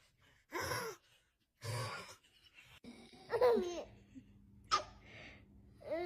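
A man snoring, two short snores about a second apart, followed by a baby's high-pitched laugh that falls in pitch about three and a half seconds in. A sharp click comes shortly after the laugh, and another short baby sound comes near the end.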